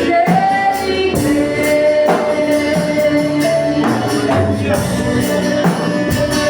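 Gospel song: sung melody with held notes over a band with tambourine-like percussion.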